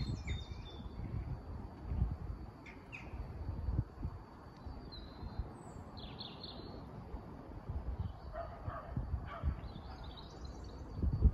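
Birds chirping and calling now and then, over an uneven low rumble.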